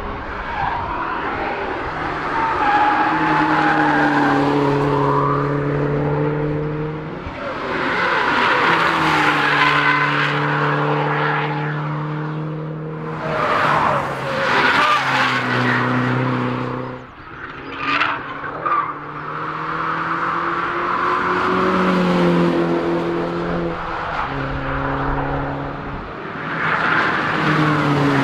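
MINI Cooper S test cars' turbocharged four-cylinder engines accelerating hard past on a race track. The engine note climbs steadily in pitch, then drops back at each upshift, several times over, with tyre noise as the cars go by.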